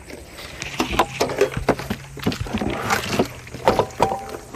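Irregular knocks, clicks and a few brief squeaks from hands working on plastic parts and tools, over a steady low hum.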